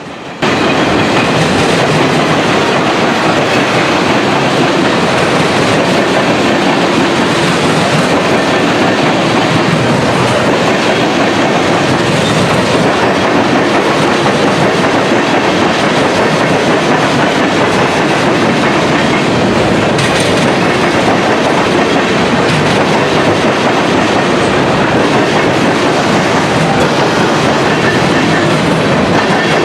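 Loaded freight cars of a passing train rolling by close, steel wheels clattering steadily on the track. The noise starts abruptly about half a second in.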